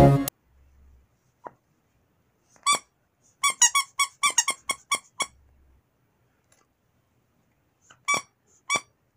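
Squeaker inside a plush hedgehog dog toy squeezed by hand, giving short high squeaks: two single ones, then a quick run of about eight, then two more near the end.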